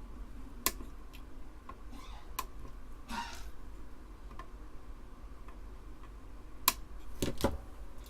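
Sparse sharp clicks and taps of small hand tools against a circuit board during soldering work, a few seconds apart, with a brief scrape about three seconds in and a quick cluster of clicks near the end, over a low steady hum.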